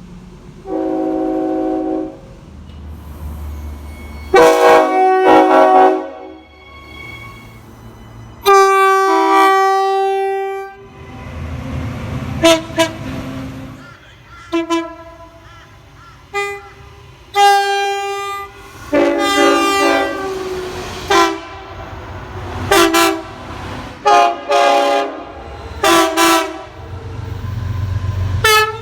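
Train horns sounding a string of blasts from one clip to the next, each a chord of several notes and each chord different; most blasts are short, the longest about two seconds at around nine seconds in. The low rumble of trains runs between some of the blasts.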